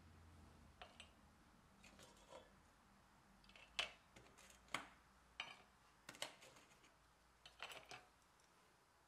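Toasted baguette slices handled out of a metal baking pan onto a metal platter: a faint string of light clicks and scrapes of crisp crust against metal, most of them in the second half.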